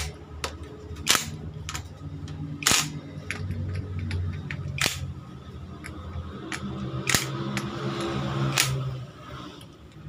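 Cordless drill-driver with a socket extension running in the bolts of a motorcycle engine's side cover: the motor whirs in spells, with sharp metallic clicks and knocks in between.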